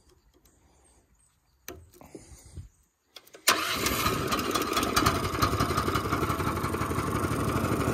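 Small air-cooled engine of a Beavertail mud motor starting: it catches suddenly about three and a half seconds in, then runs steadily.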